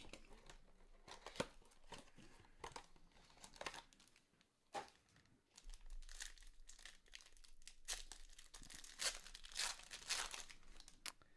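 Trading card box and foil pack being opened: faint scattered ripping and crinkling of the wrapper as cards are handled, with a denser cluster of rustles near the end.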